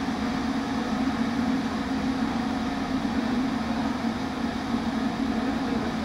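Electric kettle heating water, a loud steady rushing hum with no change in pitch or level.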